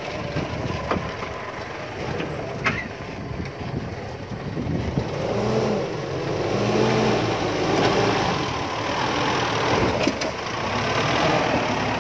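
Engine of a heavily loaded Mitsubishi Triton pickup working under load on a slippery mud climb. From about five seconds in it revs up and down several times, its pitch rising and falling.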